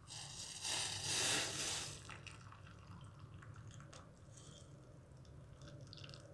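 Hot kadha (spiced black tea) poured from a pan into a cup: a splashing pour lasting about a second and a half, followed by a few faint light taps.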